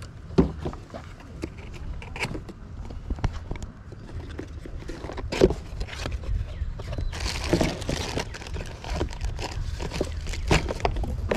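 Cardboard product box being opened and handled: scattered knocks and clicks, with a longer scraping rustle about seven seconds in, over a low wind rumble on the microphone.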